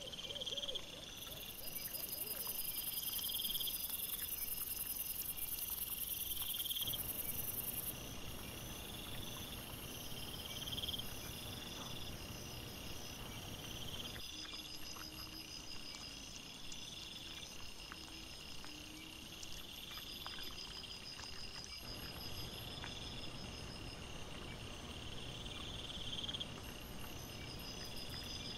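Crickets chirping in short trills that repeat every couple of seconds, over a steady background hiss.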